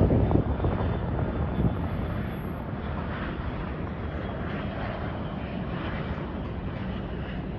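MS-21-310 airliner's PD-14 turbofan engines running: a steady rushing noise with faint, steady high tones. Wind buffeting the microphone dies down within the first second.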